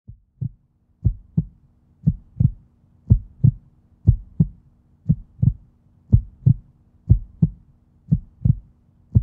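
Heartbeat sound effect: paired low thumps, lub-dub, about once a second, nine beats in all, over a faint steady low hum.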